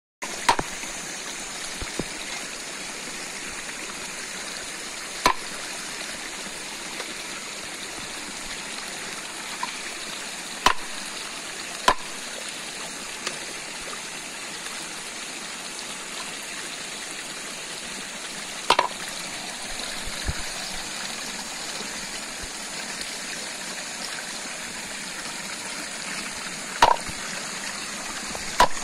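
Stream running steadily, with a handful of sharp clicks or knocks scattered over it.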